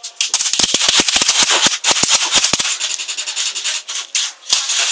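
Airsoft gunfire with BBs rattling off surfaces: a fast, uneven run of sharp snaps for the first two and a half seconds or so, then a dense, high-pitched crackle of further shots and hits.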